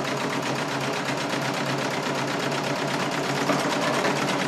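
Serger (overlock sewing machine) running at a steady speed with a fast, even stitching rhythm, sewing a straight stitch across a corner of sheer fabric.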